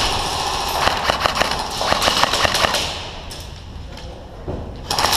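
Airsoft guns firing in rapid bursts of sharp clicks for the first three seconds or so, easing off, then starting again just before the end.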